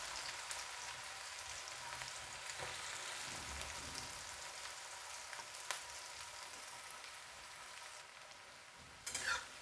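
Chopped onions sizzling in hot mustard oil in a kadhai, a steady hiss that slowly fades as the onions cool the oil. Near the end a spatula starts scraping and stirring them.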